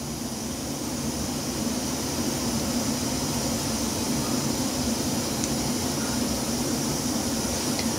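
Small vertical model steam engine running steadily on compressed air, belt-driving a model dynamo: an even mechanical running noise with a fast flutter and a hiss of air.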